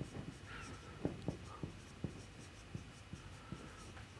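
Dry-erase marker writing on a whiteboard: a faint scatter of soft taps and brief squeaks from the tip on the board.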